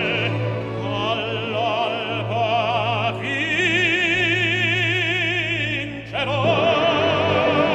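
Operatic singing with orchestral accompaniment: a voice with wide vibrato over sustained strings, holding one long high note from about three to six seconds in.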